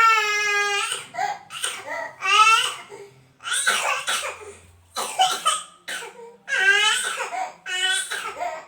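A baby crying in short, high-pitched wails broken by bouts of coughing, the coughs brought on by the hard crying.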